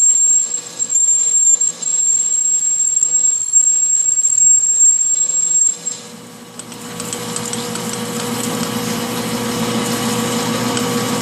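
Metal lathe drilling a 1-inch hole into stainless steel with flood coolant: a steady high-pitched whine over uneven cutting noise for about six seconds, then the whine cuts off and a lower steady running hum builds back up.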